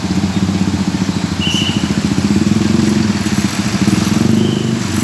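Diesel engine of a tour bus running: a steady, dense low rumble with rapid pulsing. Two short high chirps sound over it, about a second and a half in and again near the end.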